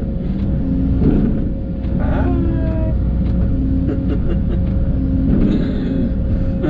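Case CX210 excavator's diesel engine running with its hydraulics working: a steady hum under a steady whine, with tones coming and going about every second and a half as the controls are worked.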